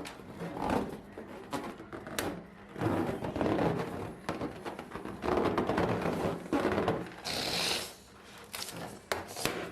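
Rubber balloons being handled: stretches of rubbing and scuffing noise broken by several sharp clicks, with a short hiss about seven seconds in.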